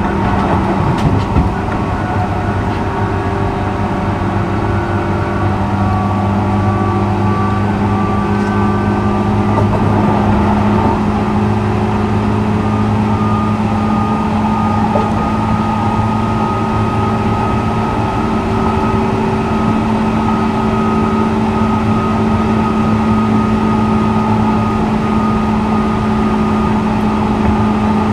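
JR 201 series electric commuter train running at steady speed between stations, heard from inside the car: a steady rumble of wheels on rail, with a constant low hum and a higher held whine from the running gear.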